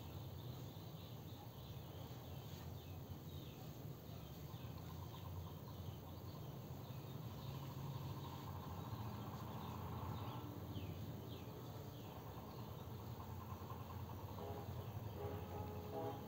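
Faint ambient background: a low steady hum under scattered short, high chirps, with a few brief tonal notes near the end.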